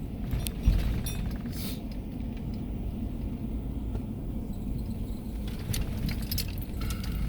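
Car driving on a bumpy dirt road, heard from inside the cabin: a steady low road rumble with loose rattling and clicking, and one hard jolt a little under a second in.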